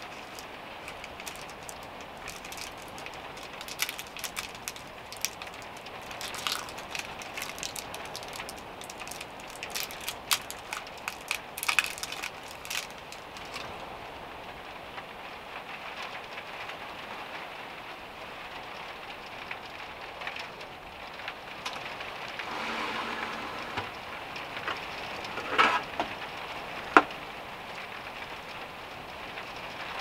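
A metal utensil clicking and scraping against a nonstick frying pan as filling is spread over a crepe, with a few sharper taps near the end, over a steady hiss.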